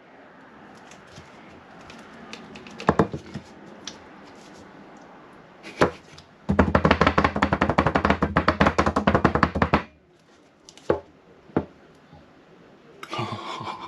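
Rapid knocking on a custard tin, about nine knocks a second for some three seconds, after a few single knocks, to shake the set custard loose.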